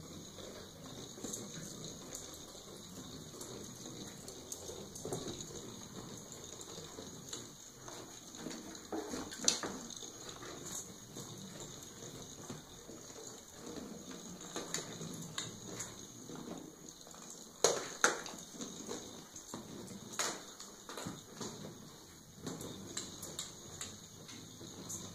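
Kittens at play on a hard floor: soft scuffling with scattered light taps and clicks of paws and toys. One sharp click about ten seconds in, and two close together a little later.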